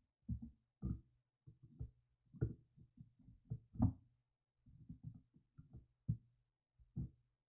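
A string of irregular, low, dull knocks and clunks as a pair of pliers turns a Teflon-taped threaded fitting into a plastic prefilter cover, the knocks bunched unevenly with short pauses between them.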